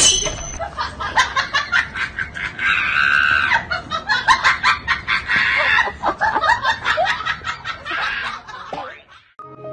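A person laughing hard in rapid, repeated bursts, several a second, stopping abruptly about nine seconds in.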